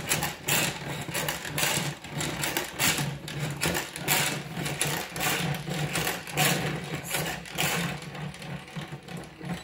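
Pump-action salad spinner being pumped by hand about twice a second, its plastic basket whirring and clattering with each press as it spins paint-covered paper. The sound dies down near the end.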